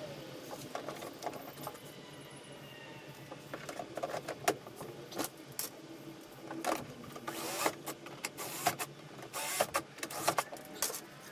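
Handling noise from mounting a marine speaker into a fibreglass boat console: irregular clicks, knocks and rattling of small parts, getting busier about halfway through.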